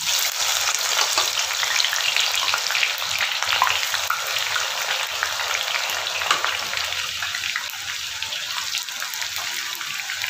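Sliced onions hitting hot oil in a kadai and frying hard, a dense sizzle full of fine crackles that starts suddenly as they go in and eases a little in the second half. This is the start of deep-frying onions until golden brown for beresta.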